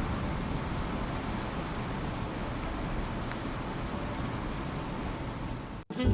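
Steady, even rushing noise that cuts off suddenly near the end.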